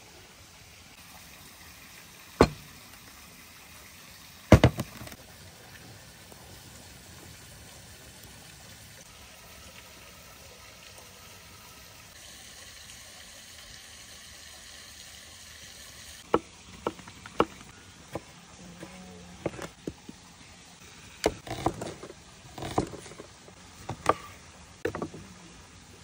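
Scattered sharp knocks and taps on a wooden cutting board, two single knocks early and an irregular run of them in the second half, over a faint steady hiss.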